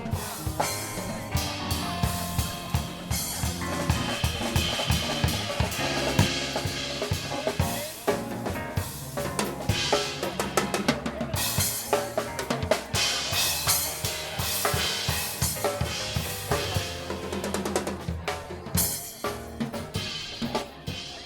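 A drum kit played in a busy, driving beat of bass drum and snare hits, with rimshots and rolls.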